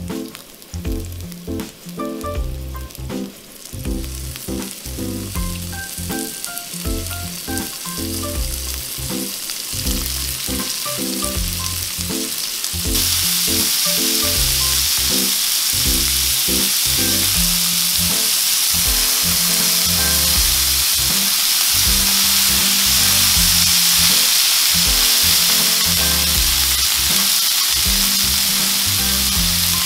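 Garlic slices frying in oil in a nonstick pan, then a much louder, fuller sizzle a little under halfway through once sirloin steak cubes are in the pan and being stir-fried. Background music plays underneath.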